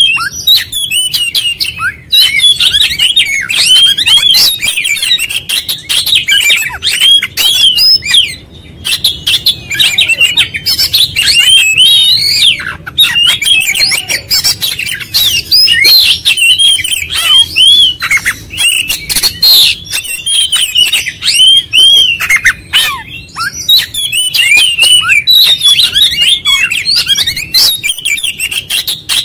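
Oriental magpie-robin singing loudly and without let-up: a dense stream of rapid whistled notes, chattering and clicky notes, running through a varied repertoire, with only a brief break a little over eight seconds in.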